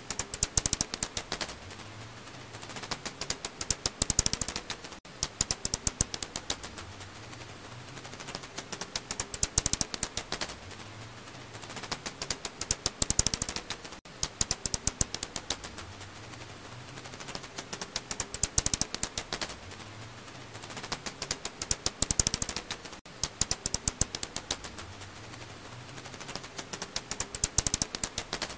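Black house bat (Hypsugo alaschanicus) calls, heard as rapid trains of clicks in bursts of a second or two, coming every few seconds.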